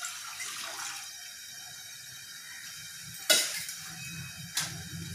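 Milk poured from a steel mug into an aluminium saucepan, splashing for about a second. Later come two sharp knocks, the louder one about three seconds in and another just over a second after it.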